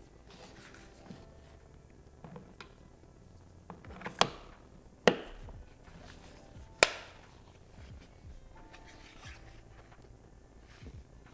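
Handling noises from an action camera unboxing: soft rustles and three sharp clicks or knocks about a second apart in the middle, as parts or packaging are set down or snapped. Quiet background music throughout.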